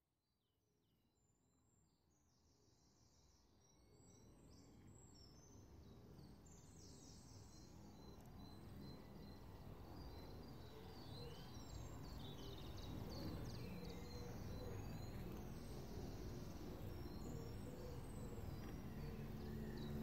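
Birdsong with many short high chirps over a hissy outdoor ambience, fading in slowly from silence. Near the end a low steady musical tone begins.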